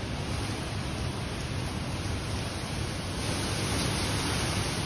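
Hurricane wind and rain making a steady rushing noise, the hiss growing stronger about three seconds in.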